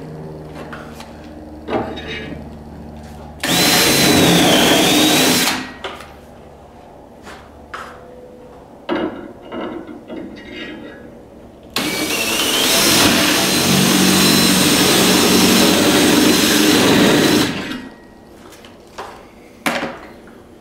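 Cordless drill boring pilot holes for lag screws into the wall behind a steel barn-door track: a run of about two seconds, then a longer run of about six seconds whose motor whine rises as it spins up. Light knocks and taps come between the runs.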